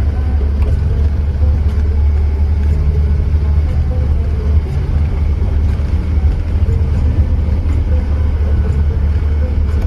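Vehicle engine running, a steady low rumble that holds even throughout.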